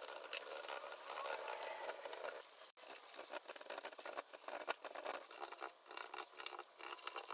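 Small paintbrush dabbing acrylic paint onto a styrofoam surface: faint, irregular tapping and scratching strokes.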